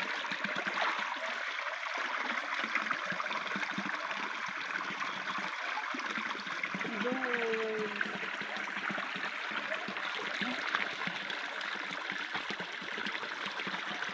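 Small rocky stream running steadily, a continuous trickling hiss of flowing water. A brief falling voice-like sound cuts in about halfway through.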